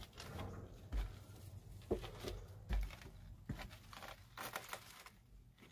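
Footsteps going down cellar steps into a basement: a few dull thuds under a second apart, with scuffing and crunching of debris underfoot and some rustle between them.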